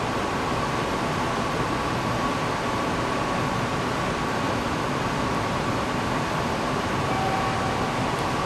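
JR Central 313 series (2600 subseries) electric train running slowly into the station platform: steady running noise, with a thin steady high tone throughout and a short lower tone near the end.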